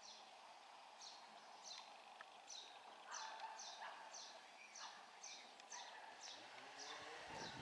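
Faint bird calling: a short, high, falling chirp repeated about twice a second.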